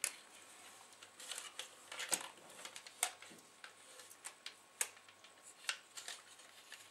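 Light, irregular plastic clicks and taps as a CD laser mechanism is handled and worked into its black plastic loader carrier.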